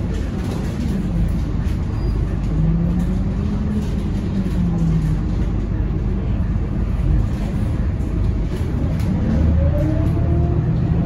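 Scania K230UB city bus heard from inside the passenger cabin: its five-cylinder diesel engine and drivetrain run with a steady low rumble and road noise as the bus drives. From about eight seconds in, the pitch rises steadily as the bus accelerates.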